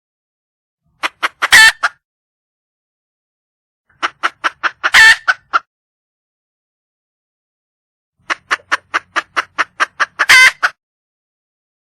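Wild junglefowl hen calling for a male: three bouts of rapid clucks, about five a second, each with one loud, drawn-out squawk near its end.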